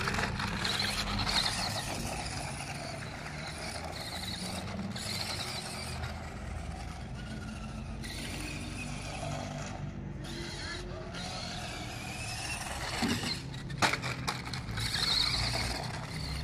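Small radio-control car driving on rough asphalt, its motor and tyres making a fairly steady running noise. A sharp knock comes near the end.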